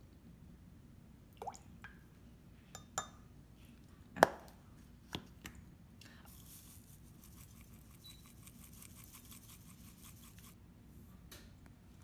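A red measuring spoon and a glass measuring cup clink and tap a few times, one sharp clink about four seconds in. Then garlic salt is shaken from its shaker into the spoon, a soft grainy rustle for about four seconds.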